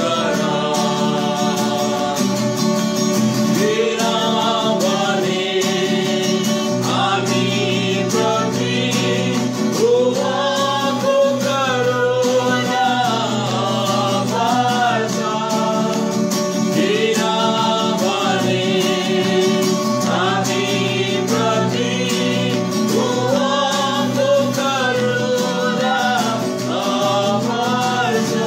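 Acoustic guitar strummed steadily while several voices sing a worship song together.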